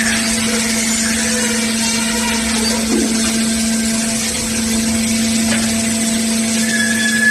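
Underground mining drill rig running steadily: a loud, even machine hum with a constant tone over hiss.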